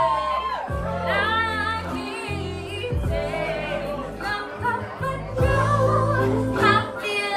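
A song with a sung vocal line over a backing track with sustained bass notes.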